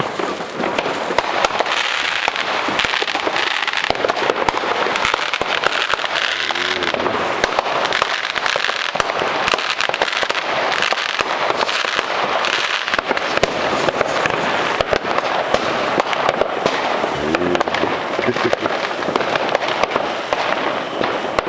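Fireworks crackling and popping continuously: a dense spray of small bangs and fizzing.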